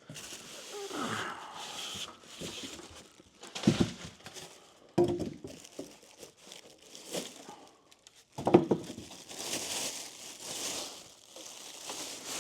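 Unboxing noises: packaging crinkling and tape being pulled and torn, with a few sharp knocks as parts are handled.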